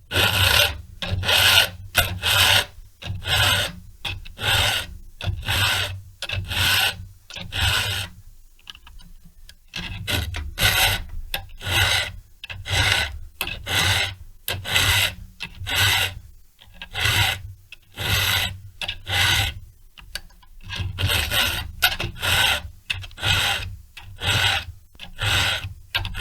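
A hand file rasping across the cutters of a chainsaw chain in rapid, regular strokes, about two a second, with a couple of brief pauses. The cutters are being filed from a full-chisel angle to a milling angle.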